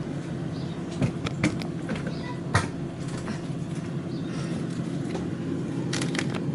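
Food packages being handled and moved about inside a fridge: a few sharp clicks and knocks, the loudest about two and a half seconds in, over a steady low hum.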